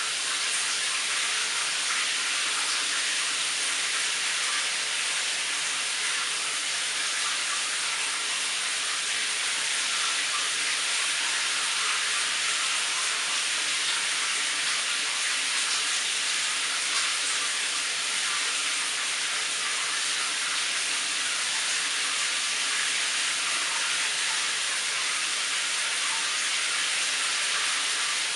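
Shower running: a steady hiss of water spraying onto the tiles of the stall.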